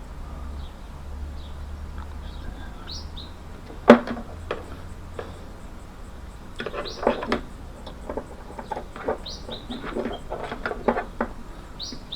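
Small birds chirping in the background. There is one sharp knock about four seconds in and a run of irregular clicks and taps in the second half.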